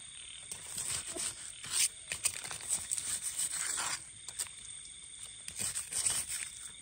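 Knife blade scraping and digging in gritty, gravelly soil, with rustling as clumps of termite mushrooms are pried and pulled out of the ground: irregular short scrapes.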